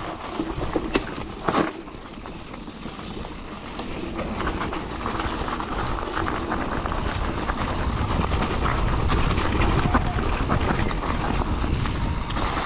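Mountain bike ridden fast down a dirt and gravel trail: tyres rumbling over the ground with a steady rattle of clicks and knocks from the bike, two sharp knocks about a second and a half in, the rumble growing louder after a few seconds.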